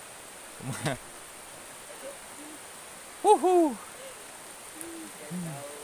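Sheep bleating: a short rough bleat about a second in, two quick, louder bleats a little past three seconds, and a fainter bleat near the end.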